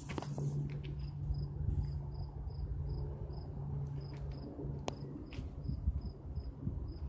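An insect chirping: short, high, evenly repeated chirps about two to three times a second. Underneath are a low steady hum and a low rumble, with a few faint knocks about five seconds in.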